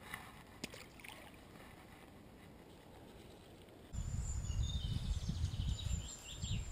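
Faint rustling and a few light clicks. About four seconds in, a much louder, uneven low rumble of wind on the microphone begins, with birds calling and chirping high above it.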